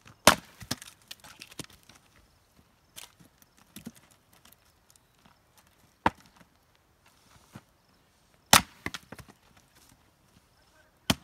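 A sharp double-bit axe splitting firewood rounds on a chopping block: four hard, sharp chops, the first the loudest, one just after the start, about six seconds in, about eight and a half seconds in and one at the very end. Lighter knocks and clatter follow the first chop.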